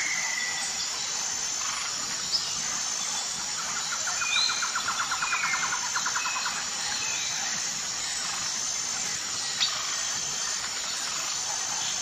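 Birds and insects in a natural soundscape: a steady high insect hum with short bird chirps, and a rapid pulsing trill about four seconds in that lasts a couple of seconds. Two sharp clicks, about seven seconds apart.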